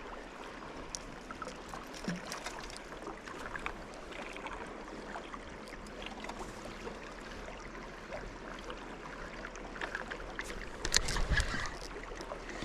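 River water lapping and trickling around an anchored boat, with scattered small knocks. A louder clatter with a low thump comes about eleven seconds in.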